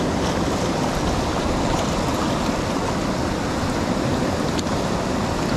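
Water rushing steadily over a low dam spillway and churning in the foam below it.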